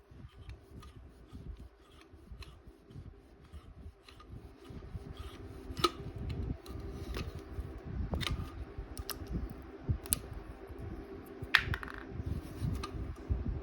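Scattered sharp clicks and scraping of small hard objects being handled, over a steady low hum.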